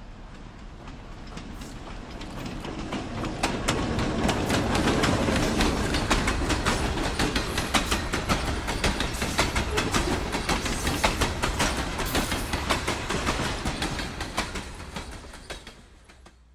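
Diesel-hauled freight train of open-top hopper cars passing close by. The wheels click rapidly over the rail joints over a steady rumble. It builds over the first few seconds and fades away near the end.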